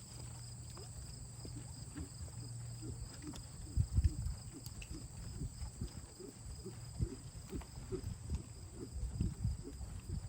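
A ridden horse's hooves thudding dully and unevenly, loudest about four seconds in and again near the end.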